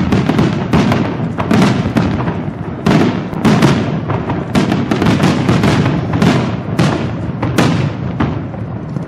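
Aerial fireworks shells bursting in quick succession, sharp cracks over a continuous rolling rumble of booms, easing off near the end.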